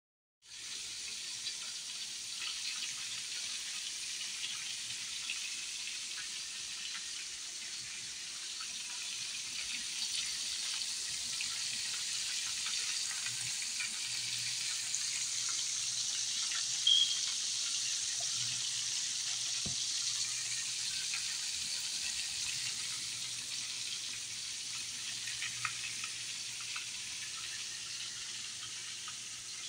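Hot oil sizzling steadily in a frying pan as seafood fries in it, with scattered small crackles and one brief louder sound about seventeen seconds in.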